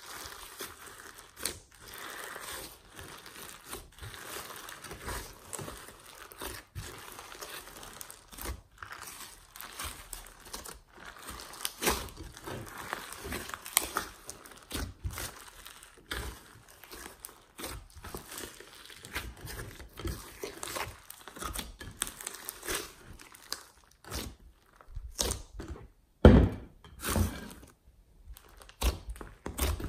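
Hands kneading, stretching and squeezing glossy slime mixed with clay and sprinkles, giving a dense run of small sticky clicks and crackles. Near the end there is one loud thud.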